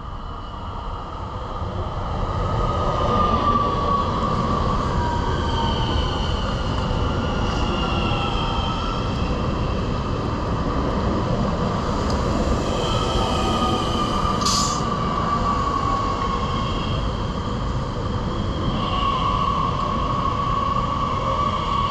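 Z 50000 Francilien electric multiple unit running in along the platform: a steady rumble that swells over the first few seconds, with drawn-out high squealing tones from the wheels and one brief sharp squeak about two thirds of the way through.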